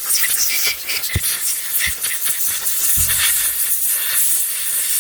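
Loud, steady hiss of a spray jet blasting a 6003 ball bearing clean of old grease, with a few light knocks.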